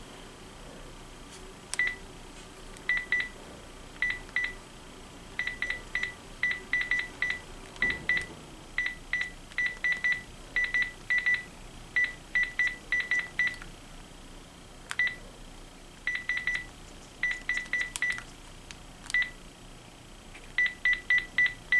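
Panasonic KX-TG6521 cordless phone handset giving short, high key-press beeps as its buttons are pressed, in quick irregular runs of two to six with pauses between.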